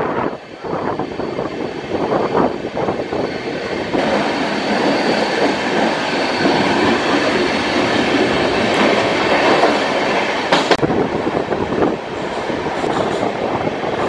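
Passenger train running along the rails, heard from an open coach window: wheels clattering over rail joints with a steady rush of air. A faint high squeal of wheels holds for a few seconds midway, and one sharp clack comes about eleven seconds in.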